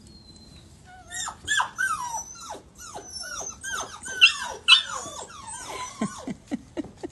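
Several puppies whining and yelping over one another: short high-pitched cries that slide downward in pitch, starting about a second in. Two sharp, louder yelps come just past the middle, and the cries thin out near the end.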